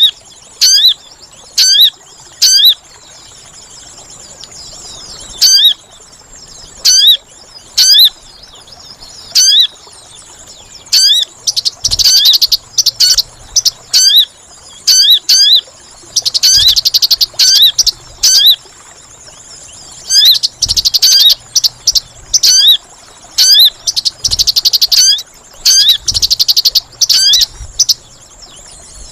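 Lure-call recording of the sogon (crimson sunbird): loud, sharp high chirps that sweep down in pitch, repeated at irregular intervals, broken by several bursts of rapid, buzzy trills. A faint, steady high whine lies underneath.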